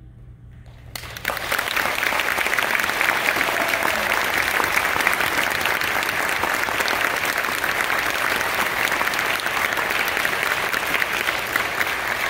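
Audience applauding, breaking out suddenly about a second in and going on steadily.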